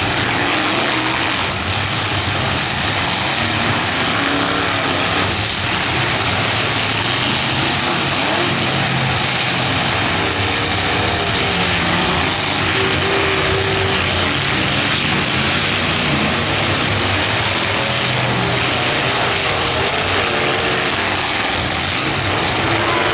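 Several demolition derby cars' engines running and revving together, their pitches wavering up and down over a dense, steady wash of noise.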